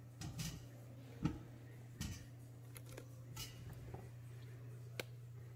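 Radish halves being set one by one onto the metal trivet inside an Instant Pot's stainless steel pot: a few faint, irregular taps and clicks, the loudest about a second in, over a low steady hum.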